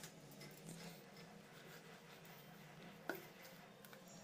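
Near silence with faint handling sounds of hands kneading maida (flour) dough, and one light click about three seconds in.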